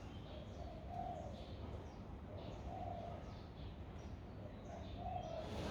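Doves cooing: short, low, soft coos repeated every second or two, with faint higher chirps of small birds over a steady low background hum.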